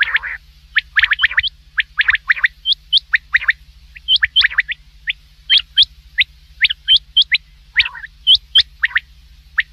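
Common quail calling: rapid short, sharp notes, often in quick groups of two or three, with a steady low hum underneath.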